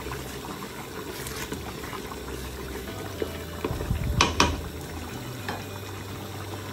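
Curry masala of onion, tomato and ground spices bubbling and spluttering in a pot as it is slow-fried, the stage where the spices cook down in the oil. A stirring spoon knocks on the pot a few times, loudest twice in quick succession about four seconds in.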